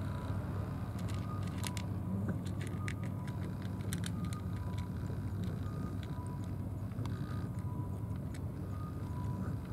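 Steady low rumble of distant road traffic, with a run of small sharp clicks about a second in as a cat chews and licks its food from a plastic tray.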